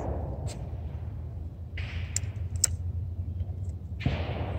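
The echoing tail of a 20-gauge over-under shotgun shot fades out, followed by a few sharp clicks and rustling about two seconds in. A weaker bang with a short echo comes about four seconds in, over a steady low hum.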